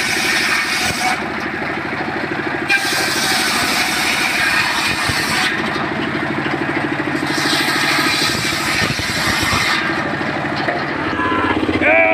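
Homemade table circular saw driven by a single-cylinder stationary engine, ripping teak planks: the engine runs steadily throughout, and the blade's hissing rasp rises three times as it cuts through the wood. A short pitched whine sounds near the end.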